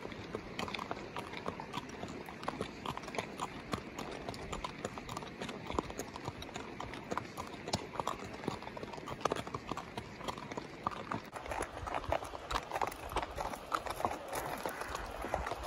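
Horse hooves clip-clopping on a gravel road, a steady run of close, sharp hoof strikes heard from the saddle.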